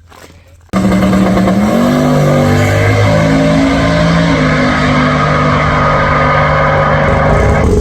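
Turbocharged LS V8 of a Holden VH Commodore drag wagon at full throttle on a drag pass. The engine sound cuts in suddenly about a second in and stays loud, its pitch shifting in steps.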